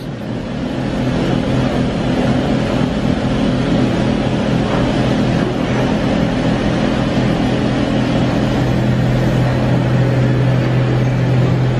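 Doosan DBC130II CNC horizontal boring mill running, a steady machine hum with a low drone whose low tone grows stronger about two-thirds of the way through.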